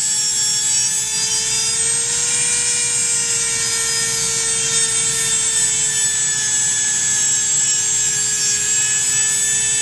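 Dremel rotary tool running steadily at a constant high-pitched whine, grinding a wooden pencil down to a point.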